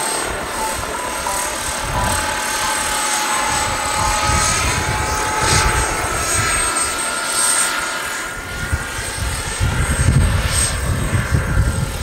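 Radio-controlled scale SA 315B Lama helicopter with a small jet turbine engine, flying: a steady high-pitched turbine whine over the rotor noise, with gusts of strong wind buffeting the microphone that grow stronger near the end.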